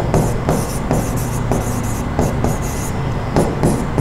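Felt-tip marker writing on a board: a quick run of short scratchy strokes as words are written, over a steady low hum.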